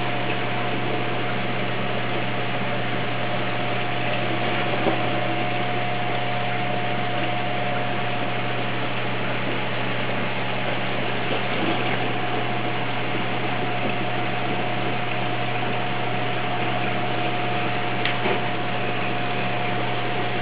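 Steady hum and rushing hiss of reef aquarium equipment, pumps and circulating water, with a thin constant whine over the hum. A couple of faint ticks come through, about five seconds in and near the end.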